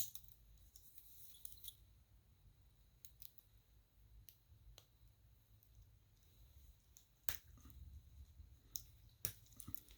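Faint, scattered metallic clicks from a steel watch bracelet's fold-over clasp being handled, opened and snapped shut, with the sharpest clicks in the last three seconds.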